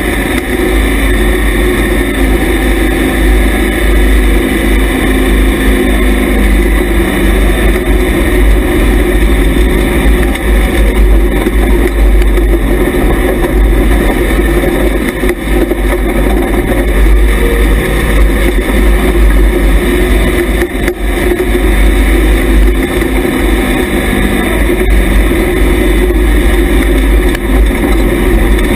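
IMCA Hobby Stock race car's engine running hard at racing speed, heard from inside the car, loud and steady with brief dips in level about halfway through and again about two-thirds of the way through.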